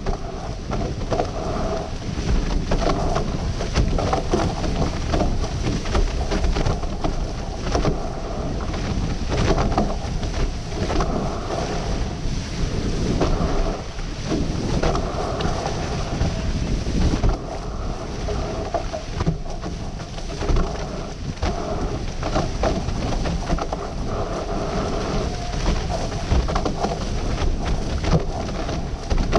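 Wind buffeting the microphone and water rushing and splashing past the hulls of a catamaran sailing fast, a steady loud rush that gusts up and down.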